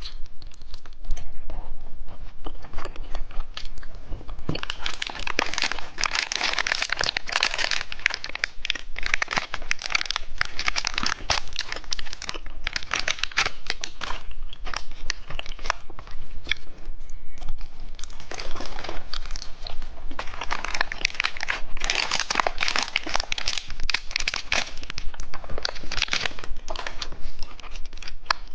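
Candy wrapper crinkling and tearing as it is handled and opened, in two long spells with a short lull between.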